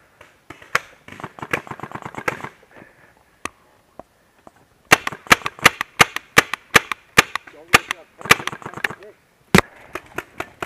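RAP4 468 paintball marker firing a rapid string of shots, about five a second for roughly three seconds starting about halfway in, followed by a few more single shots near the end.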